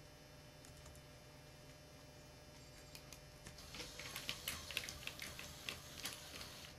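Small tracked robot's plastic treads and gearbox clattering as it turns on a wooden floor: a quick, irregular run of clicks and rattles starting about three seconds in.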